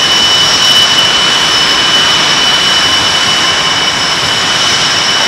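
F/A-18 Hornet jet engines running at idle on the ramp: a loud, steady whine with piercing high tones over a broad roar.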